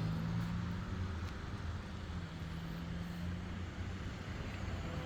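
A motor vehicle's engine running close by: a steady low hum whose pitch shifts slightly partway through, over light traffic noise.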